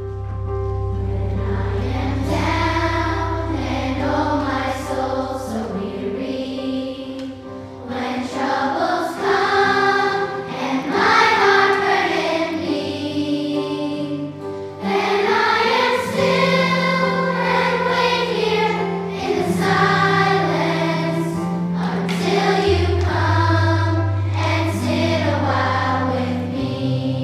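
A children's choir singing with instrumental accompaniment.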